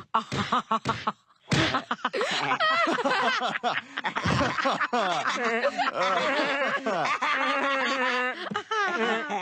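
Several voices laughing together: short chuckles at first that swell into long, wavering laughter.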